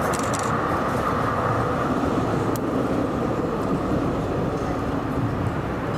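Steady rumble and hiss of a moving train, with a few faint clicks.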